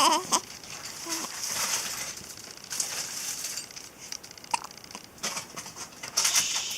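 A few brief, irregularly spaced hiccups: a short wavering one at the start, a faint one about a second in and a sharp one around four and a half seconds in, over a rustling, crinkly hiss.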